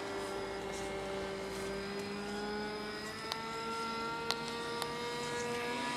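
Engine of a radio-controlled model seaplane running as a steady whine, its pitch climbing slowly. A few sharp ticks come near the middle.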